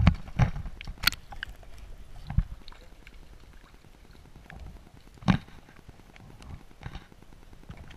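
Handling noise from a waterproof action camera at the water's edge: irregular sharp knocks and bumps on the housing, with water splashing around it. The loudest knocks come right at the start and about five seconds in.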